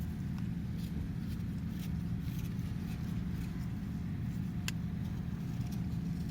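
Campfire crackling with scattered small pops, one sharper pop about four and a half seconds in, over a steady low rumble.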